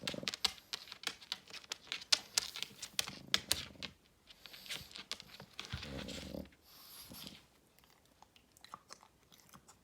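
A Pekingese dog smacking its mouth: quick, wet clicks for about four seconds. A few softer rustling sounds follow, dying away by about eight seconds in.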